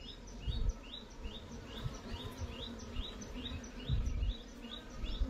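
A bird repeats a short rising chirp about twice a second, over the low hum of Indian honeybees (Apis cerana indica) from an opened hive as a comb frame is lifted out. There are two dull low thumps, about half a second in and around four seconds in.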